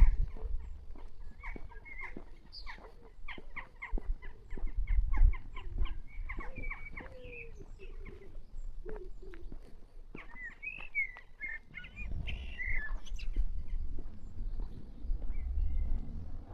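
Small birds chirping, with quick clicks a few seconds in and gusts of wind buffeting the microphone now and then.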